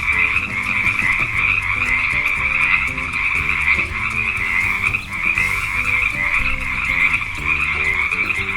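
Chorus of frogs croaking, many calls blending into one dense, unbroken sound.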